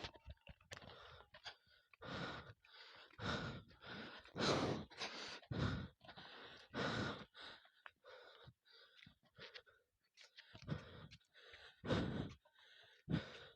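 A person breathing hard and heavily close to the microphone, about one loud breath a second, while climbing steep steps uphill.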